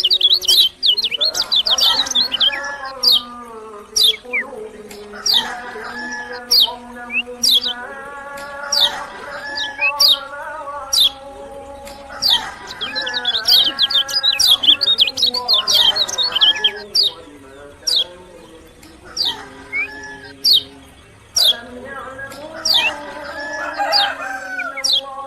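Kecial kuning songbird singing continuously: rapid, sharp high chirps and quick trills repeated over and over. Lower, wavering calls come and go underneath in phrases a second or two long.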